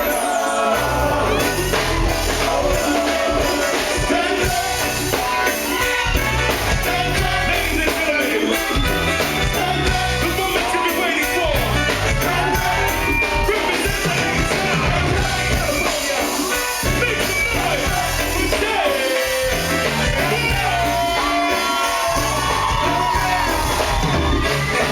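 Live reggae band playing, with a steady bass line and beat under a male lead singer's vocals, heard as a concert recording from the crowd.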